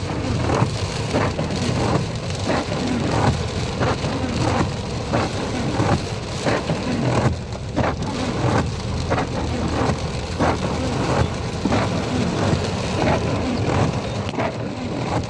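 Heavy rain falling, with large drops striking a surface every half second or so over a steady low rumble.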